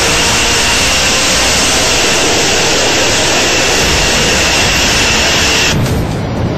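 Fighter jet engine at high power on a takeoff run: a loud, steady roar with a high whine running through it. The upper hiss cuts off about a second before the end, leaving the lower rumble.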